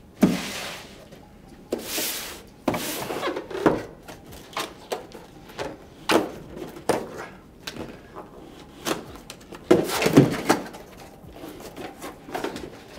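Cardboard box being opened and handled by hand: a run of rustles, knocks and scrapes from the flaps and box, with several longer scraping sounds in the first three seconds.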